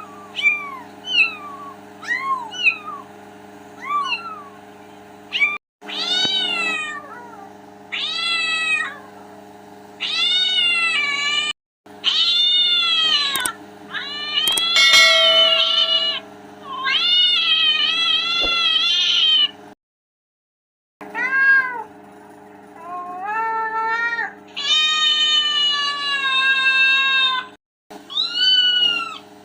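Cats meowing, one call after another in a string of edited clips. First come short, quick mews, then longer drawn-out meows, with abrupt cuts to silence between clips and a steady low hum underneath.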